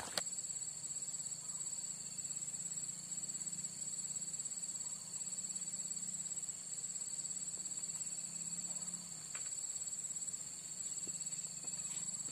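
Insects singing: a high-pitched, rapidly pulsing trill that runs in phrases of a second or two with brief breaks.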